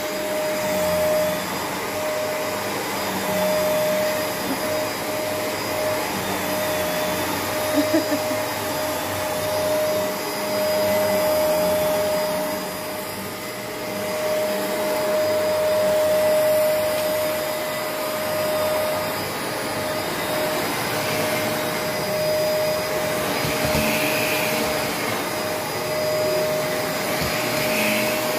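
Shark Rotator upright vacuum running steadily, with a constant motor whine over the suction noise, its level rising and falling as it is pushed back and forth over a shedding rug. A couple of sharp knocks about eight seconds in.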